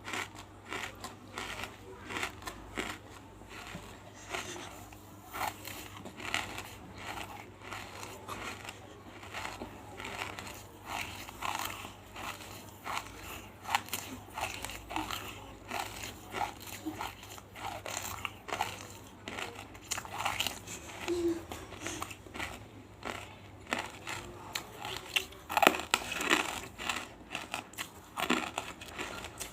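Close-miked crunching of big chunks of banslochan (tabashir) in the mouth: dry, brittle pieces cracking and crumbling in a steady run of short crunches, a couple a second, with a louder cluster near the end.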